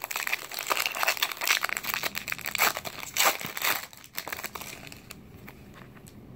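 A 2017 Topps Chrome foil card pack wrapper being torn open and crinkled, a dense crackling for about four seconds, then fading to soft rustling as the cards come out.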